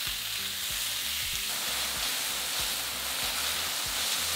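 Thin strips of sirloin steak sizzling steadily in hot oil in a wok over high heat, stirred and turned with a metal spatula that scrapes and knocks against the pan now and then.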